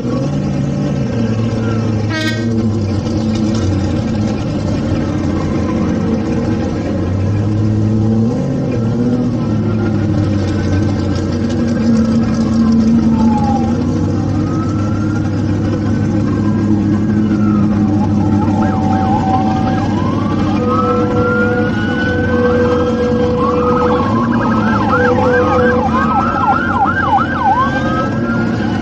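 Car engines running steadily while an electronic siren wails, starting about a third of the way in and turning to rapid yelps near the end. A brief beep sounds about two seconds in.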